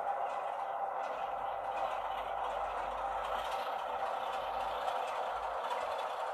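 Heljan OO gauge Class 33 model locomotives running slowly along the track, making a steady rattling hiss from their wheels and motors.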